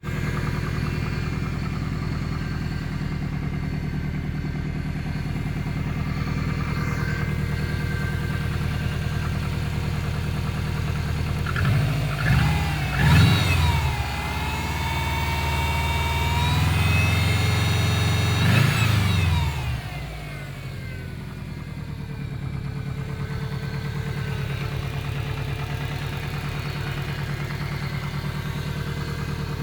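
Subaru EJ20G turbocharged flat-four idling with a knock, then revved in a few quick blips about 12 s in and held at higher revs for several seconds before dropping back to idle. Others take the knock for the forged pistons knocking; the owner suspects a connecting rod.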